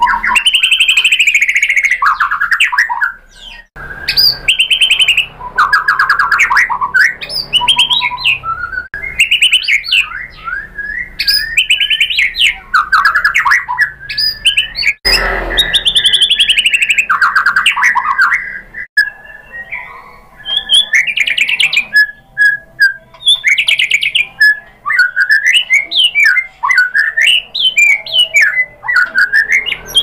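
White-rumped shama (murai batu) in full song: a fast, varied run of clear whistled phrases mixed with harsh rattling notes, with short pauses between phrases.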